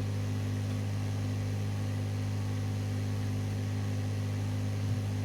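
Steady low electrical hum with a stack of overtones, unchanging, with one faint click about five seconds in.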